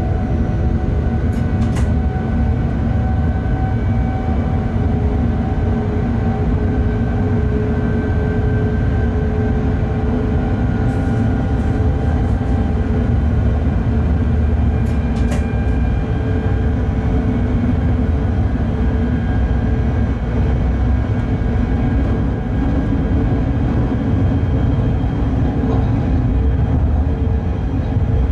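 Bombardier Traxx class 186 electric locomotive hauling a freight train at speed, heard from the cab: steady running noise of wheels on rail and traction drive, with faint steady tones over it and a few brief clicks.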